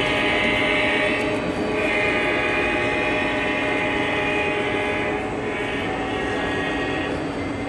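Model trains running on a layout: a steady drone of several held tones under a higher rushing that swells and fades every couple of seconds.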